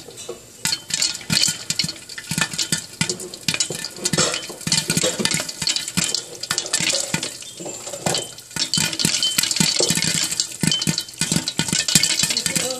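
Popcorn kernels popping in a lidded pot: a rapid crackle of sharp pops that comes thicker from about four seconds in.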